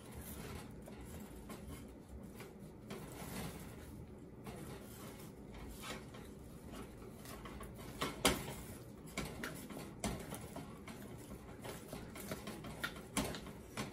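Thick cauliflower fufu dough being stirred and folded in a stainless steel saucepan: faint squelching with scrapes and a few sharp knocks of the spoon against the pot, the loudest about eight seconds in.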